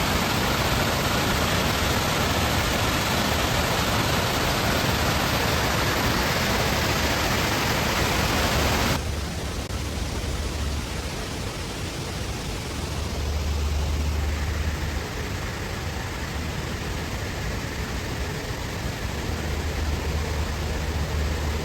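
Rain-swollen waterfall: a steady, loud rush of falling water. About nine seconds in it cuts abruptly to a quieter, lower rush with low rumbling that swells and fades.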